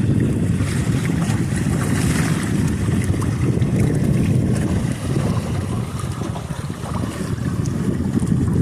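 Wind buffeting the microphone on a sailboat under way, with the rush of water along the hull underneath: a steady, fluttering low rumble.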